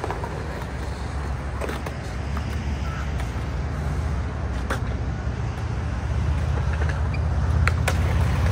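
Skateboard wheels rolling on concrete, a steady low rumble that grows louder as the board comes closer near the end, with a few sharp clacks of the board and trucks striking the concrete curb and ground.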